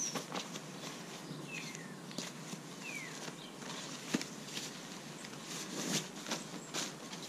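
Rustling and scattered light clicks from handling and rolling up a small inflatable camping pillow and its stuff sack, over steady outdoor background noise. A bird gives a short falling chirp twice.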